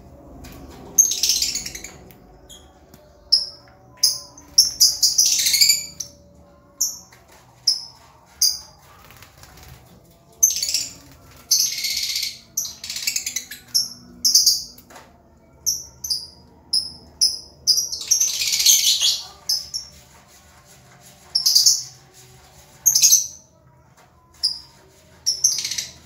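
Lovebirds chattering: several bursts of loud, high-pitched chatter a few seconds apart, with strings of short single chirps in between.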